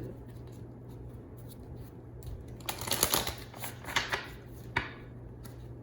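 Tarot cards being handled: a quick flurry of papery card clicks about three seconds in, then one more snap of a card near the five-second mark, over a low steady hum.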